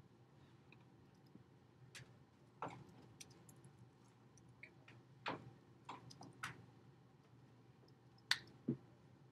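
Faint, irregular clicks and taps over quiet room tone, about eight in all, with two sharper ones near the end.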